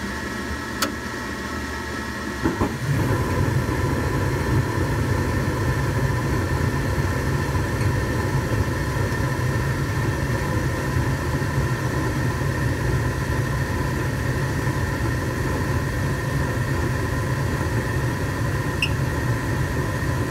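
Gas furnace running with a steady mechanical hum while its hot surface igniter glows. About two and a half seconds in there are a couple of clicks, and the burners light with a steady low rush of burning gas that continues to the end.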